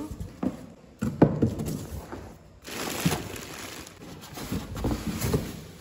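Packaging being handled as a carton is unpacked: irregular rustling and scraping of cardboard, polystyrene foam and plastic wrap, with a few sudden knocks.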